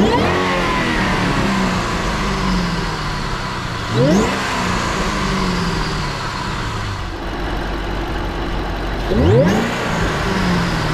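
Stock 2011 Shelby GT500's supercharged 5.4-litre V8 revved while parked: three quick throttle blips, about four seconds apart, each rising sharply and settling back to idle.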